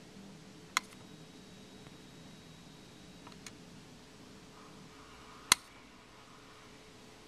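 Sharp metallic clicks from a Märklin Telex remote coupler's electromagnet being switched: one about a second in, a faint one midway, and a louder one near the end, over a faint steady hum.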